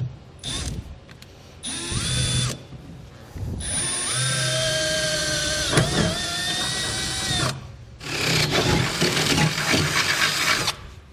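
Cordless drill drilling holes for a fifth-wheel base rail through the floor of a pickup bed. It runs in several bursts: a short one, a second of about a second, a long run of about four seconds with a steady whine, then a rougher spell near the end.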